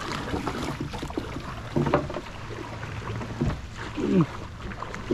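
Paddle strokes splashing beside a small outrigger canoe, with water lapping at the hull over a low steady hum. A short falling voice sound comes about four seconds in.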